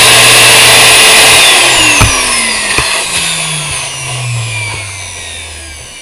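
A 1400-watt vacuum cleaner motor from a backpack vacuum running at full speed with a loud high whine and rush of air. A click about two seconds in, then it coasts down, the whine falling in pitch and fading.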